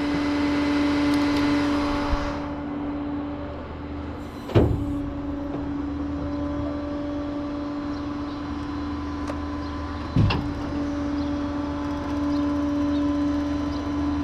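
A vehicle running at a steady idle, with two sharp thumps about five and a half seconds apart.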